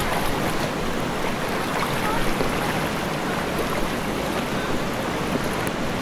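Steady rush of the Kenai River's fast current flowing over its shallow gravel bed.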